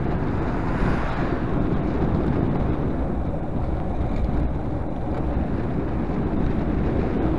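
Wind buffeting the microphone of a camera on a moving bicycle: a steady, rough rumble.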